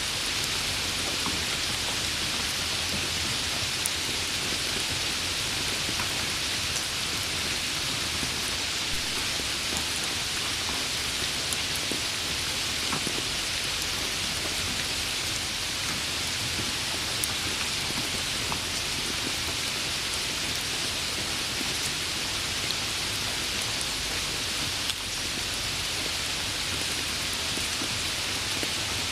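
Steady rain falling: an even hiss of rain with scattered individual drops ticking through it.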